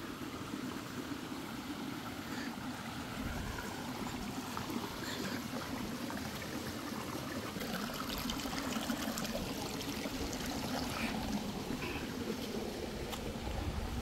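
A stream running, a steady rush of water.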